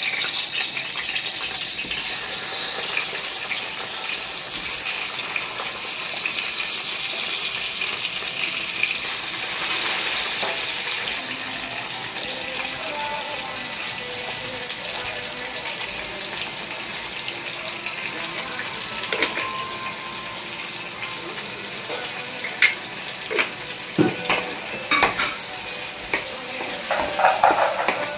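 Food frying in hot oil in a pan, a steady sizzle that eases off over the first ten seconds or so. In the last several seconds a utensil knocks and scrapes against the pan a number of times.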